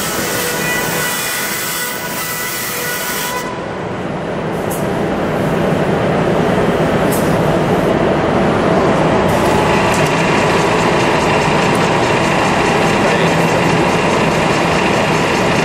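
Ormac VTS automatic shoemaking machine running through its cycle on a clamped shoe sole: steady mechanical running noise that changes about three and a half seconds in and grows louder and fuller around six seconds, with a few sharp clicks.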